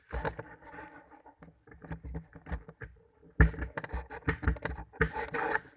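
Clicks, knocks and scraping from a sewing machine's mechanism being worked by hand as its knob is turned with the shuttle held, the gear moving; a sharp knock about three and a half seconds in.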